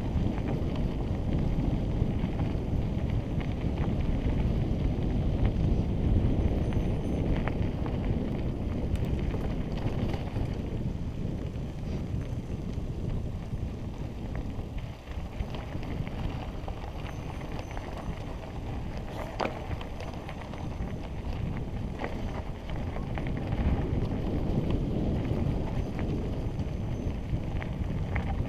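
Wind rumbling over a helmet-mounted camera's microphone while riding a mountain bike along a dirt trail, rising and falling with speed. Scattered small clicks and rattles come from the bike and tyres on the rough ground.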